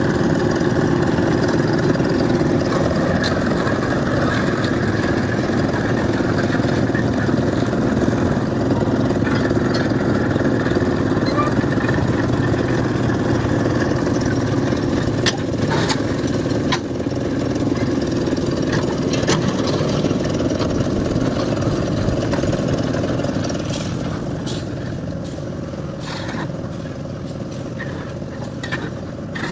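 The engines of a drum concrete mixer and a bucket hoist running steadily, with a few sharp knocks and clanks. The running noise eases slightly about three-quarters of the way through.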